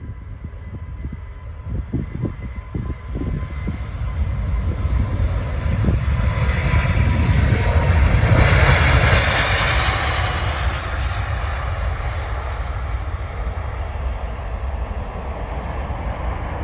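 Twin-engine wide-body jet airliner taking off at full thrust. The roar builds as it rolls down the runway, peaks around eight to nine seconds in with a high fan whine on top as it rotates and passes, then eases to a steady lower rumble as it climbs away. A few low thumps come about two seconds in.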